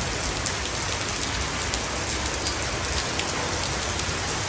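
Steady rain falling on wet paving and grass, with scattered ticks of single drops.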